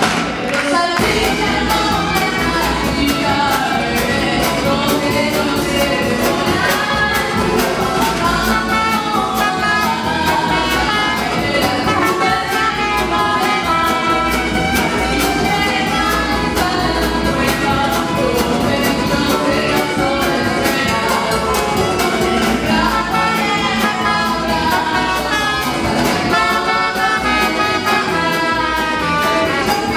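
Live band music: trumpet and violin playing melody over upright bass and drum kit, with singing.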